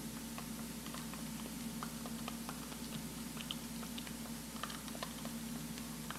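Small irregular clicks and scrapes of a stick stirring a jar of thick black Equilox hoof adhesive in a small plastic jar, over a steady low hum.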